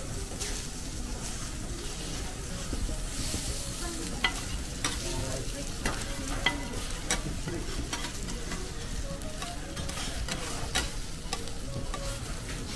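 Okonomiyaki sizzling steadily on a hot iron griddle, with metal spatulas scraping the plate and clicking against it several times through the middle.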